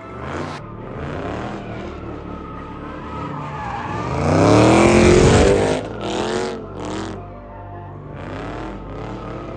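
A car spinning in donuts: the engine revs up and down repeatedly over the hiss and squeal of sliding tyres. The longest and loudest rev comes about halfway through, followed by a few shorter blips.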